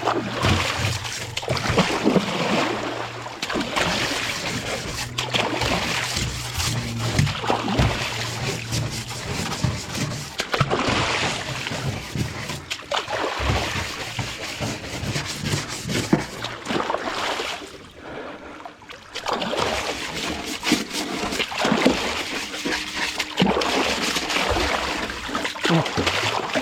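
Water splashing and trickling over and over as a boat's hull is washed from in the river, with a short lull partway through.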